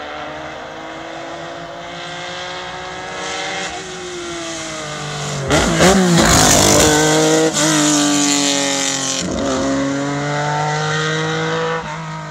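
Lancia Stratos HF rally car's Ferrari Dino V6 accelerating hard up through the gears as it approaches, passes close and pulls away. The pitch climbs in each gear and drops at each upshift, and it is loudest as the car passes about six seconds in. The sound cuts off suddenly near the end.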